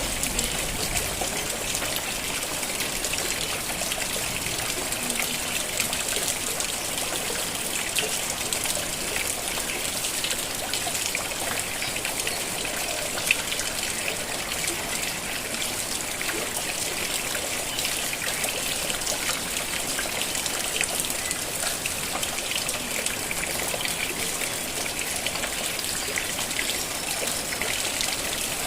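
Steady rain falling, with a dense patter of drops and water trickling and running off. One sharper tap stands out about 13 seconds in.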